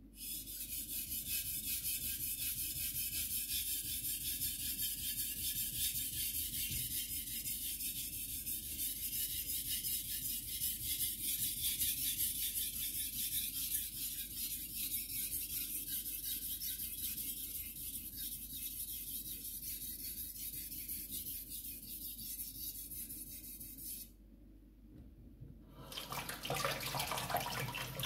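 Carbon-steel gyuto blade scraped rapidly back and forth on a wet Japanese whetstone, a steady fine scraping hiss; it stops near the end, and about two seconds later a kitchen tap runs water onto the stone.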